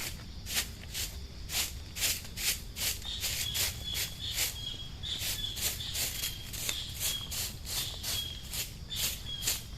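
Rhythmic swishing strokes, about two or three a second, like steps or sweeping on leaves and ground. From about three seconds in, a high, thin chirp repeats over them.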